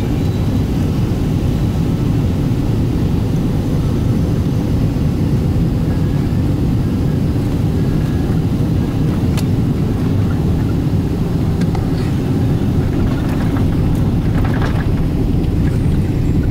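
Jet airliner cabin noise on landing: a steady low rumble of engines and rushing air, with a few knocks and rattles in the second half as the airliner touches down on the runway.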